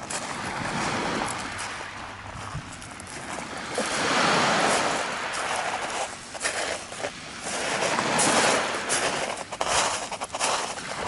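Small waves washing up on a pebble beach, swelling twice, about four seconds in and again near eight seconds, with irregular crunching clicks of pebbles underfoot.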